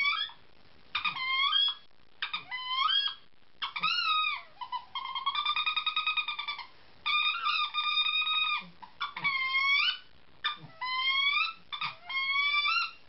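Wood duck call blown by mouth: a string of squealing whistles, each one breaking upward in pitch. Near the middle come two longer calls that flutter rapidly.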